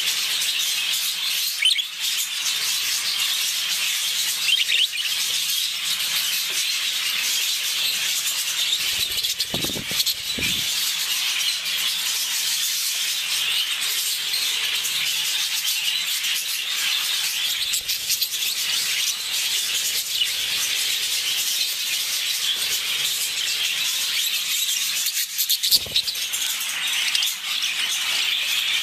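Budgerigars chattering and warbling without a break, a busy scratchy stream of chirps, with a couple of low bumps about ten seconds in and again near the end.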